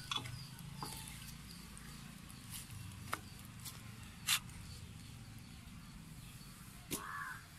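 A knife cutting mushrooms on a wooden board: a few sharp, irregular taps as the blade goes through onto the wood, over a low steady hum. Near the end a crow starts cawing.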